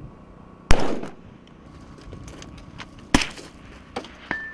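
Rifle firing two shots about two and a half seconds apart, each a sharp crack with a short echoing tail, the first the louder. Two lighter clicks follow near the end.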